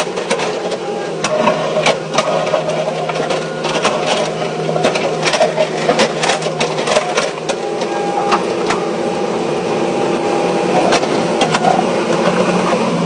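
Excavator's diesel engine running steadily under load, with frequent sharp knocks and clatter as it works through rock.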